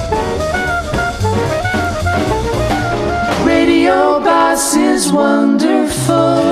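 A jazzy recording with horns and a drum kit; a little over three seconds in, it moves into fuller, louder held chords.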